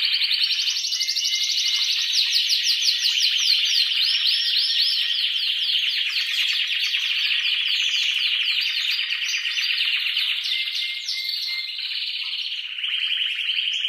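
Male canary singing an excited, continuous song of very fast rolling trills and rapid falling notes.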